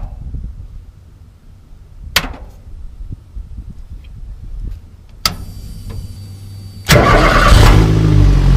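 Dash toggle switches clicking on, then about seven seconds in the GM Ecotec four-cylinder engine cranks, catches and settles into a steady idle.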